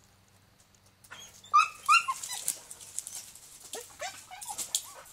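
Border collie mix whining in short, high cries that slide up and down, starting about a second and a half in and again near the end: eager whines for a stick hanging out of her reach. Leaves and brush rustle as she jumps at it.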